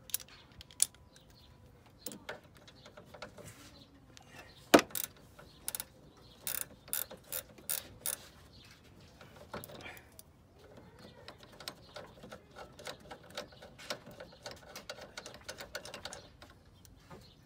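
Hand socket ratchet clicking in short runs as a 13 mm nut is backed off. There is a sharp metallic knock about five seconds in.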